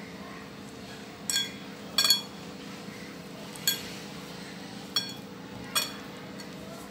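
Glass mixing bowl clinking as a hand mixes and kneads flour and water into dough inside it: five or six sharp ringing clinks at irregular intervals, two of them close together about two seconds in. A steady low hum runs underneath.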